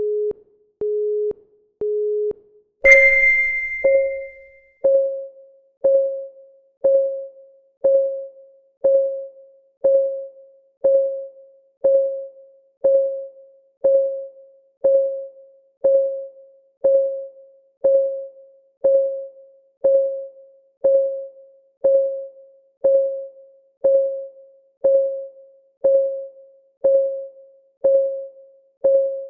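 Countdown timer sounds: three short low beeps a second apart, then a single high bell-like ding. After that, a clock-style tick once a second, evenly paced.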